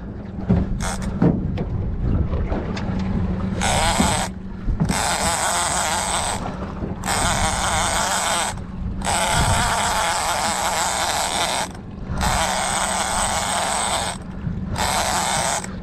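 Overhead game-fishing reel buzzing in six runs of one to three seconds with short breaks, starting about four seconds in, over the steady low hum of the boat's outboard motor.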